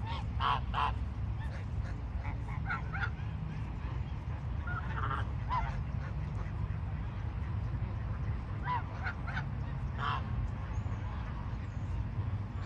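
Geese honking, short calls a few at a time in scattered clusters, over a steady low rumble.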